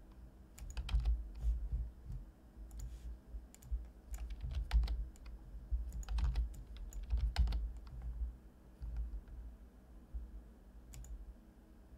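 Computer keyboard keys clicking in irregular clusters, with dull low thuds under the clicks.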